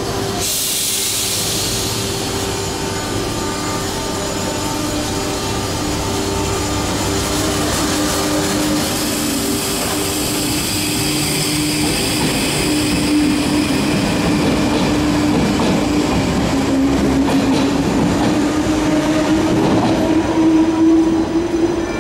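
RER B electric commuter train moving along the platform: a steady electric motor whine over wheel and rail noise, dipping slightly in pitch about halfway through and then slowly rising. A burst of hiss comes just after the start.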